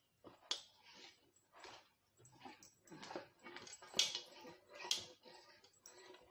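Hands rubbing and pressing flour onto raw chicken pieces on a foil-lined plate: irregular crinkling and rustling of the foil. The two loudest crinkles come about four and five seconds in.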